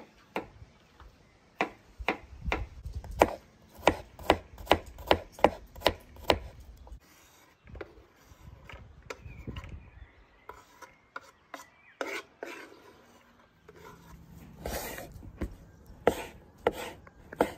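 A quick, even run of knocks or strokes, about three a second for several seconds. After a quieter pause, a second, looser run of strokes comes near the end.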